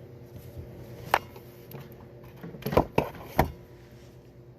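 Metal parts of a Honda manual-transmission gear selector clicking and knocking together as they are handled: one sharp click about a second in, then three more close together near the three-second mark, over a faint steady hum.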